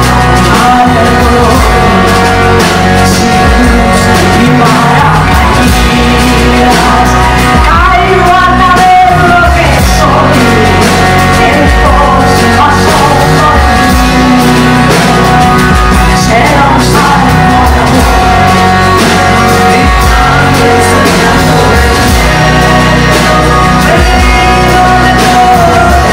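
Live band playing a song: a voice singing over strummed acoustic guitar, electric bass and drums.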